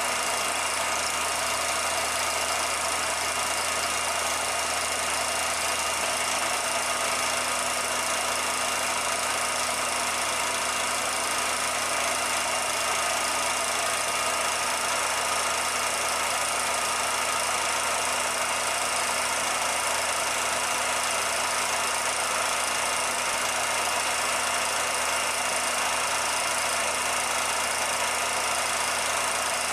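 A steady, unchanging mechanical drone with a few constant whining tones: a motor running at one even speed, with no rise or fall.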